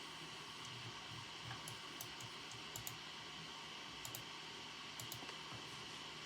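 Computer keyboard keys pressed slowly and unevenly, a dozen or so light clicks, some in quick pairs, over a steady faint hiss of room ambience.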